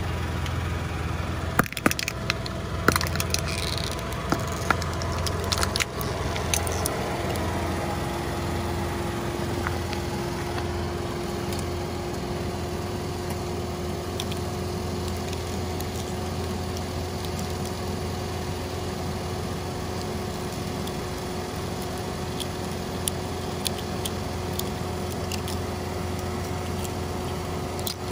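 A car engine idling steadily. In the first six seconds or so, a string of sharp cracks and crunches comes as the tyre crushes hollow plastic toy eggs. After that the idle runs on with a steady hum and a few light clicks from the broken shell pieces.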